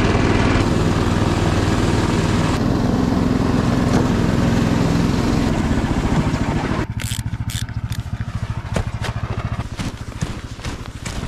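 Small engine of a Snowdog tracked snow machine running steadily under way. About seven seconds in it cuts to a quieter low engine hum with crunching steps in deep snow.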